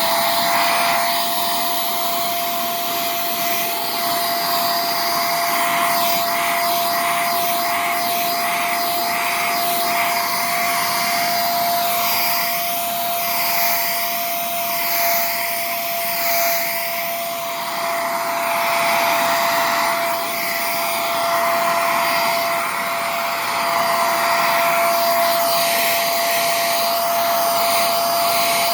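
NKV-78WS vacuum cleaner running, a steady high motor whine over a rush of air that swells and dips.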